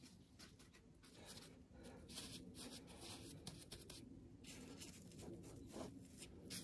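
Faint, irregular scraping and rubbing of gloved hands shifting a rough stone as it is settled onto a dry-laid stone wall.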